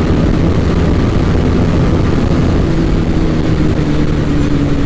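Motorcycle engine running steadily, its pitch easing down slightly in the second half.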